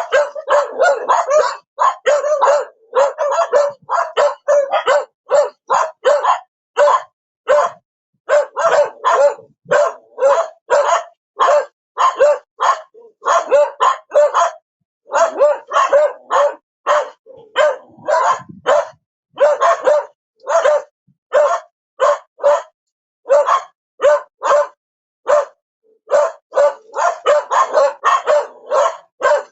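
A dog barking repeatedly in rapid runs of sharp barks, a few a second, with short pauses between bouts.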